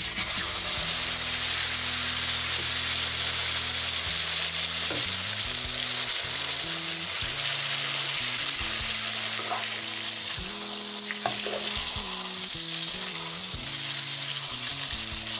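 A red-sauce-soaked corn tortilla frying in hot oil, sizzling steadily from the moment it goes into the pan, with a few light touches of a metal spatula.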